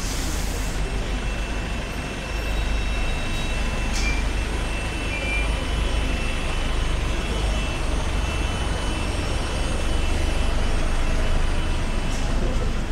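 Busy city street traffic on a wet road: a steady low rumble of double-decker bus and car engines under an even wash of road noise, with a brief hiss right at the start.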